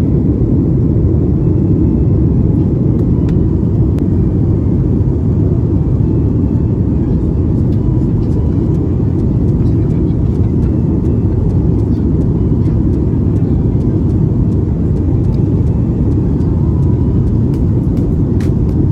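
Steady low rumble of a jet airliner's cabin noise in flight, the engines and rushing air heard from inside the cabin, with a few faint clicks near the end.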